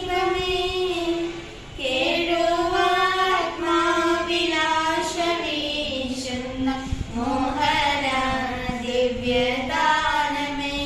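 Two girls singing a Christian prayer song together, holding long notes, with a short pause for breath about two seconds in.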